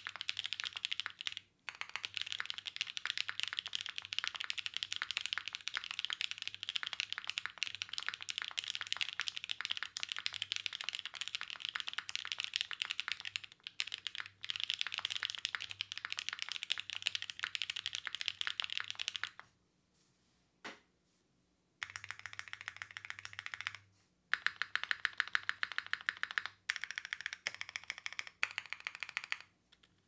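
Aksara CE mechanical keyboard with lubed Novelkeys Cream linear switches on a polypropylene plate and GMK keycaps, being typed on quickly: a dense patter of key clacks. A pause of about two seconds falls a little past the middle, with a single keystroke in it, and there are a few brief breaks near the end.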